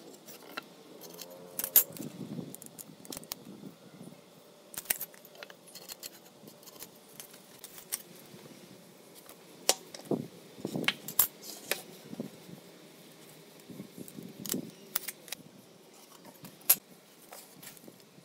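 Scattered light metallic clinks and knocks of hand tools and pine boards being handled on a concrete floor: an aluminium square and a tape measure set down and picked up, boards shifted, with a run of duller knocks about ten seconds in.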